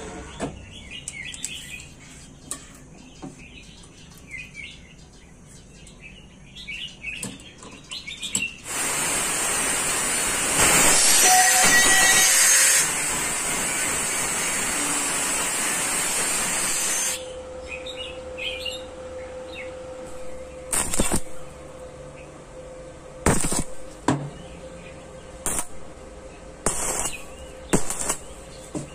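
Angle grinder with a thin cutoff disc running and cutting through thin-walled square steel tubing: a loud steady whine with a high tone, lasting about eight seconds from roughly nine seconds in and loudest while the disc is in the metal. Later come a handful of short sharp cracks from stick arc welding on the tubing.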